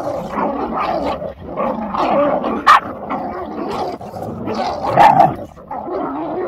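A pack of pit bull puppies growling and barking in play as they tug and bite at a dangled cloth. Two sharp, loud barks stand out, one in the middle and one about two-thirds of the way through.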